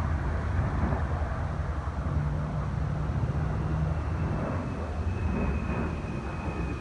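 Jet aircraft engine noise from an air show overhead: a steady low rumble, with a faint high whine coming in about five seconds in and sliding slightly lower.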